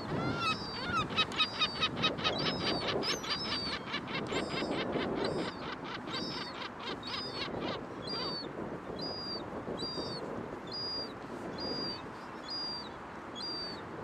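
Young gull begging: a fast run of high, thin calls, several a second, through the first half, then single high falling whistled notes about twice a second.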